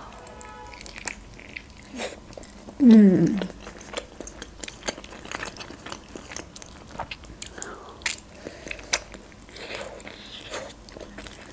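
Close-up eating sounds of a person biting into and chewing boiled Georgian khinkali dumplings: soft wet mouth clicks and smacks throughout, with a brief pitched hum that falls in pitch about three seconds in.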